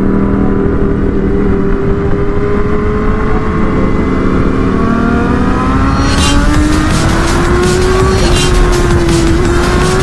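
Motorcycle engine running under way, with heavy wind rush on the microphone; its pitch climbs gradually from about halfway as the bike accelerates. A rapid, even high ticking joins about six seconds in.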